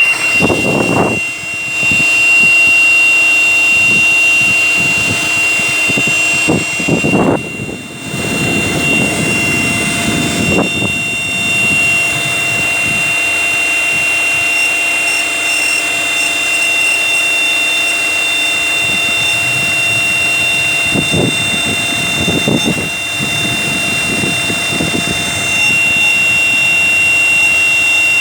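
Secondary air injection pump of a Skoda Octavia A5 1.6 MPI running at start-up, with a steady high-pitched whistle over its hum. The whistle appears with each start in cold winter weather. A few brief low rumbles come and go.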